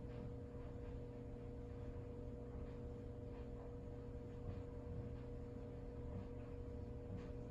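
Quiet room tone: a steady low hum with a thin constant tone, and a few faint soft ticks.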